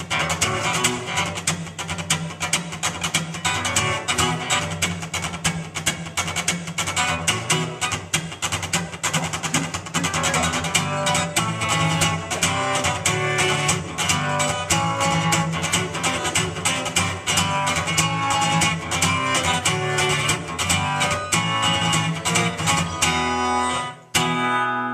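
Acoustic guitar strummed in a fast, steady rhythm without singing. Near the end the strumming stops and a final chord is struck and left to ring, closing the song.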